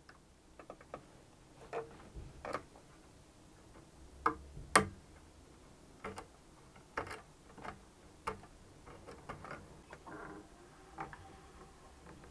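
Irregular small clicks and scrapes of a small pointed blade working against metal winding wire on a wooden bow stick as the wire's loose end is trimmed. The clicks come unevenly, one sharper than the rest a little before the middle, with a short scratchy stretch near the end.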